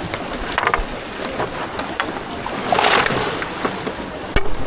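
Floodwater of a swollen river rushing past, with a swell in the noise about three seconds in and a few sharp knocks.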